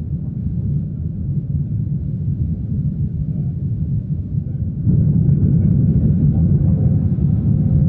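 Airliner's steady low rumble, which steps up suddenly and grows louder about five seconds in, with faint steady tones appearing above it.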